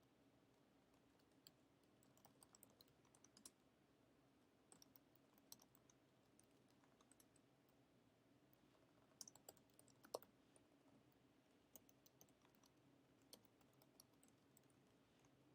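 Faint typing on a computer keyboard: scattered key clicks in short irregular runs over near-silent room tone, the loudest about ten seconds in.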